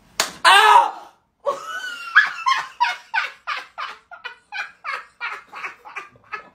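Two people break into hard laughter in a long run of short ha-ha bursts, about three a second, right after a loud cry near the start.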